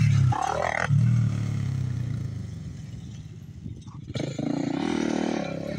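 Built 2001 Honda TRX400EX's single-cylinder four-stroke engine revving hard in bursts, then dropping off the throttle about three seconds in, and picking up again just after four seconds.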